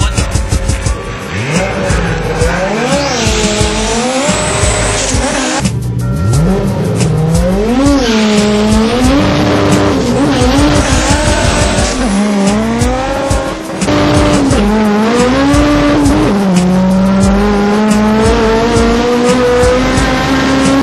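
A racing engine accelerating hard through the gears: its pitch climbs, drops at each shift and climbs again, about half a dozen times, then rises slowly and steadily near the end. Music with a steady beat plays underneath.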